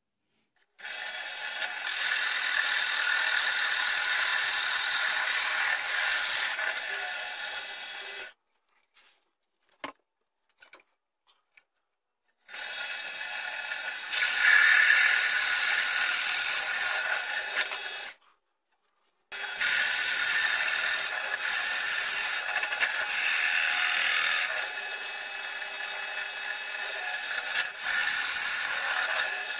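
Bench drill press running with a Forstner bit boring into a walnut board, a steady motor hum under the cutting noise. It comes in three long stretches that each start and stop abruptly.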